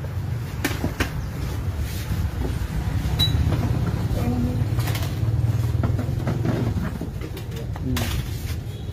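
A steady low rumble like a nearby engine running, with faint background voices and a few light clicks.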